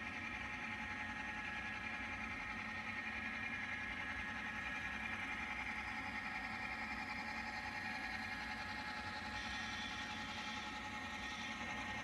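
HO-scale model freight train running past, pulled by two diesel locomotives: a steady hum with a high whine. About nine seconds in, the sound of the cars rolling on the track gets brighter for a couple of seconds.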